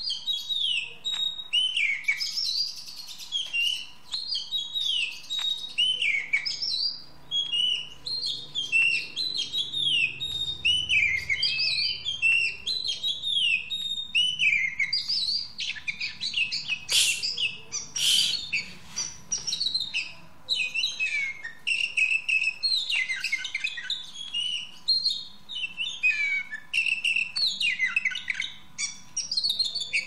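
Oriental magpie-robin singing a rapid, varied song of clear whistled notes, many of them falling in pitch, with hardly a pause. Two sharp clicks come just past halfway.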